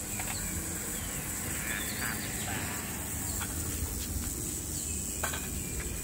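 Outdoor street ambience: a low rumble and a steady high hiss, with faint short bird-like chirps and a few light clicks of a spoon and bowl at the food stall.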